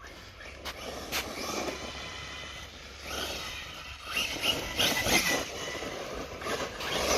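Axial Ryft RC truck driving over rough ground: a thin electric motor whine over a noisy rush of tyres and chassis rattle, getting louder about three seconds in and again around five seconds.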